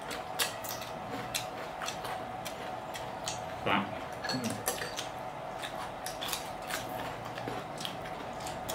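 Crunching and chewing of raw vegetable sticks, with scattered clicks and crackles of eating and of chopsticks and dishes, over a faint steady hum. A short murmur of voice comes a little over a third of the way in.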